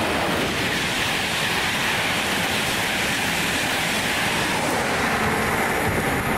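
A train passing along the line, giving a steady rushing of wheels on rails and air, whose hiss sinks slowly in pitch as it goes by.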